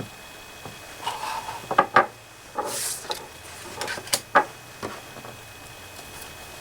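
Handling of a screwdriver and screws on a laptop's plastic back casing: a scatter of sharp clicks and knocks, loudest about two seconds in and again just past four seconds, with a brief rustle near three seconds.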